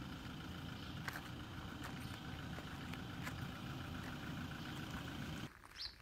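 An engine running steadily at idle, a low even hum with a few faint clicks; it cuts off suddenly about five and a half seconds in.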